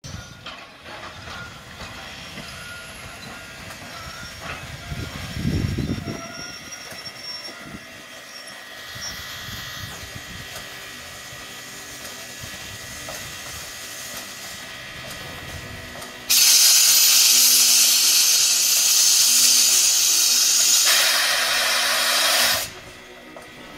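Steam locomotive standing with its train, letting off a sudden loud hiss of steam about sixteen seconds in that lasts some six seconds and cuts off abruptly. Before it, only quiet low background sound.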